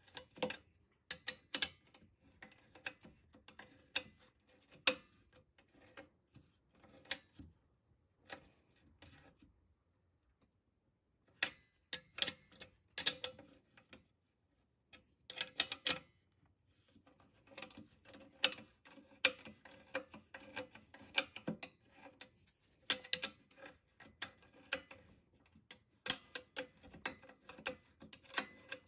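A steel 14 mm open-end spanner clicking and scraping against a hex axle nut as it is swung back and forth and re-seated on the flats: a series of irregular sharp metal clicks, with a short pause about ten seconds in.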